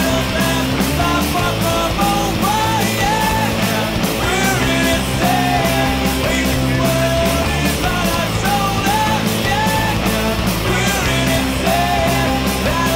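Background rock music with singing over a steady drum beat.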